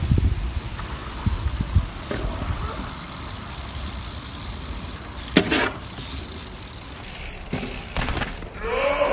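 BMX bike tyres rolling on a concrete skatepark surface, with knocks from the bike and a sharp clack about five seconds in.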